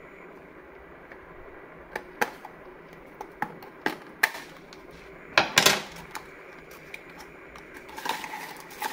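Sharp clicks and snips of scissors cutting the seal sticker on a small cardboard charger box, several single clicks and then a louder group a little past halfway. Near the end, the cardboard flap rustles as the box is opened.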